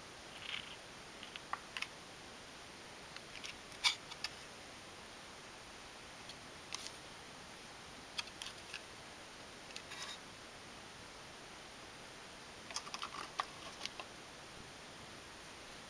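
Scattered light clicks and small handling taps in a few short clusters, the sharpest about four seconds in, over a steady faint hiss.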